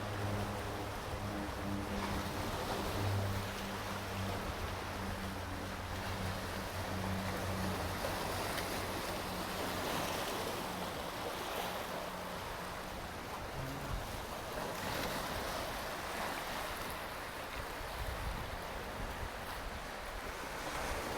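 Sea waves washing onto the beach in repeated surges every few seconds. A low steady hum sounds under the surf at first and fades out within the first several seconds.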